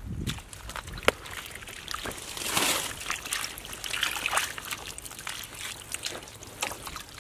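Wet mud and water sloshing and squelching in a woven basket as it is scooped and worked by hand, with water trickling out through the weave and scattered small clicks. The sound swells briefly twice, about two and a half and four seconds in.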